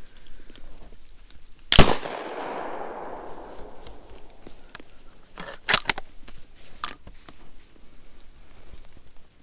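A single shot from a Cobray Terminator 12-gauge shotgun about two seconds in, its echo dying away over the next couple of seconds. A few sharp clicks follow a few seconds later.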